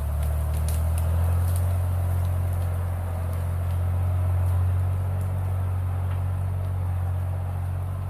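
Tractor diesel engine running steadily as a low, even drone while a felled tree is skidded out along a forest track.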